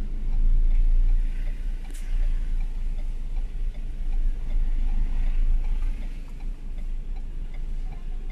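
Low rumble inside the cab of a Ford Ranger pickup driving slowly, with one sharp click about two seconds in.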